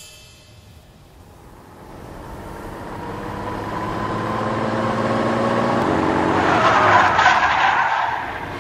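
A car engine sound effect for an approaching vehicle. It grows steadily louder with its pitch climbing a little, peaks about seven seconds in with a rush of tire noise, then drops away near the end.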